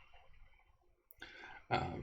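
Quiet room tone, broken by a single sharp click just over a second in, then a short mouth or breath sound from the narrator near the end.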